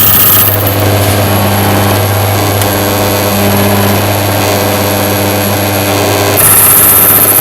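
Key duplicating machine's motor running steadily as its cutter cuts a key blank, with a brighter, harsher high hiss briefly at the start and again for the last second or so.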